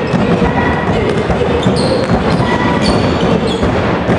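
Basketball game in a gym: the ball bouncing on the hardwood court, with brief high squeaks and voices in the hall.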